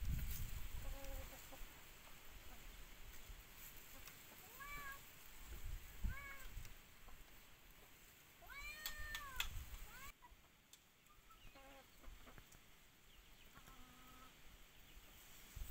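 Domestic cat meowing repeatedly: about six short, rising-and-falling meows, with a longer one a little past the middle.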